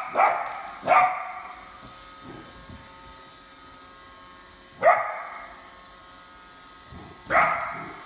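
A puppy barking in short, high-pitched barks: two close together at the start, one about five seconds in and one near the end.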